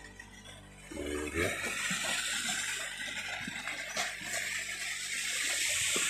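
Stream water rushing steadily, swelling louder over the last few seconds.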